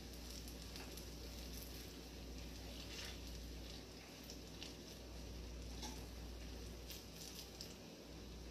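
Plantain puff puff dough balls deep-frying in hot oil in a saucepan: a faint steady sizzle with scattered small pops and crackles, over a steady low hum.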